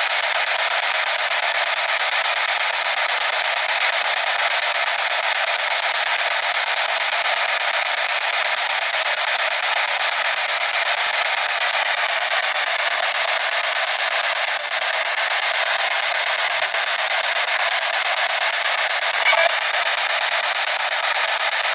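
P-SB7 spirit box sweeping through radio stations: a steady hiss of static from its small speaker, with a brief louder snatch of sound near the end.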